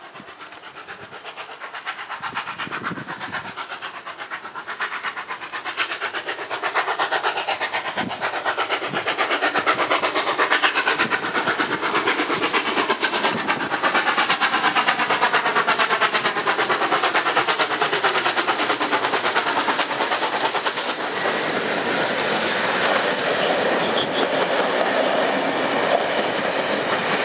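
NSW C36 class 4-6-0 steam locomotive 3642 approaching and passing with its train of carriages. Rapid rhythmic clatter of the wheels on the rails grows louder over about ten seconds, then holds steady as the carriages roll by.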